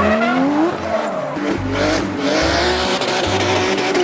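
Race car engine sound, revving up and down in pitch several times, over a low pulsing beat.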